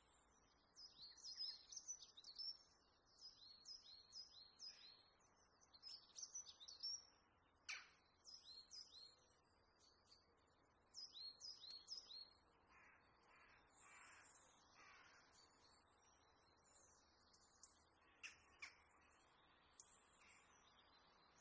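Faint birds calling over a low hiss: runs of quick, high, downward-slurred chirps, then a few lower, harsher calls about two-thirds of the way through.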